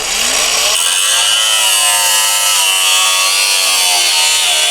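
Electric power tool cutting into the Mazda MX-5's rusted body metal, running loud and steady with a whining pitch that dips slightly about a second in as it takes the load.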